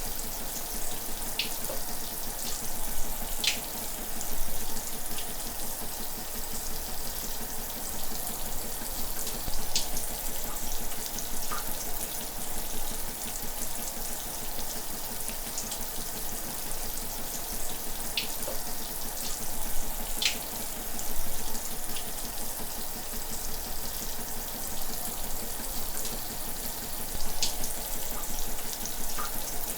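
Shower running: a steady hiss of falling water, with a sharper splash or drip every few seconds.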